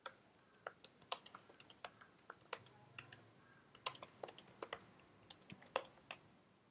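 Typing on a computer keyboard: a faint run of irregular keystrokes that stops about six seconds in.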